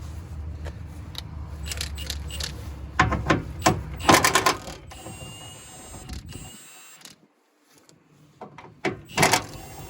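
Metal parts clinking and rattling as hood latch hardware and tools are handled. There is a cluster of sharp knocks about three to four seconds in and a few more near the end, with a low steady hum underneath at the start.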